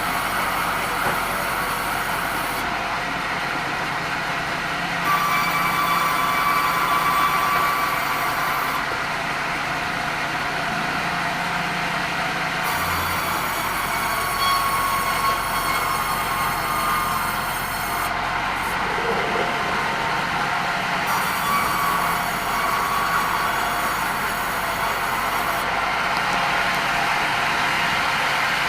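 Sawmill bandsaw running and cutting red meranti timber: steady machine noise with a whining tone that comes and goes every few seconds.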